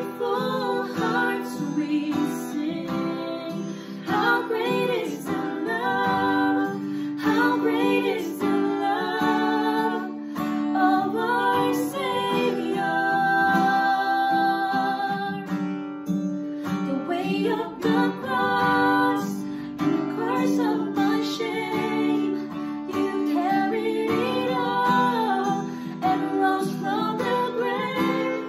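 Two women singing a worship song in unison and harmony, accompanied by a strummed acoustic guitar.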